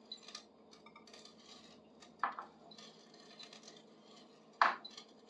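Pipe cutter being turned around a wooden dowel, its wheel scoring a line around it: faint rubbing with two sharper metal clicks, about two seconds in and near the end.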